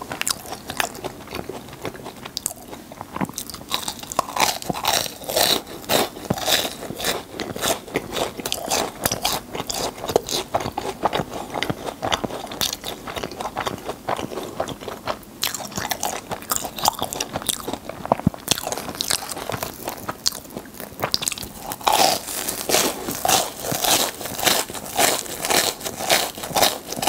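Close-miked chewing and crunching of filled, sugar-coated churros, a continuous run of crisp crunches. Near the end, a bite into another churro brings a louder, denser run of crunches.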